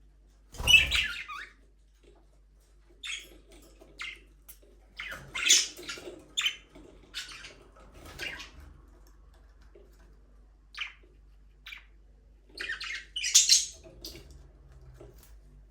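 Budgerigars chirping in short, scattered calls. The loudest calls come about half a second in and again near the end, with a lull of a couple of seconds in the middle.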